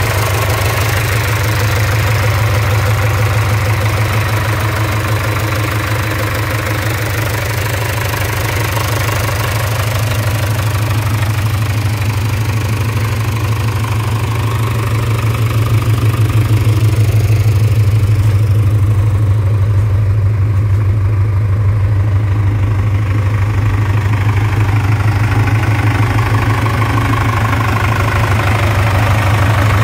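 Mitsubishi Canter 4x4 fire truck's engine idling steadily with its cab tilted up, the engine uncovered and heard directly, with an even low pulse.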